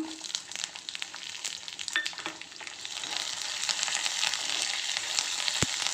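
Hot oil in a kadai sizzling and crackling as curry leaves and ginger are dropped onto fried mustard seeds and chana dal. The sizzle grows louder and denser about three seconds in.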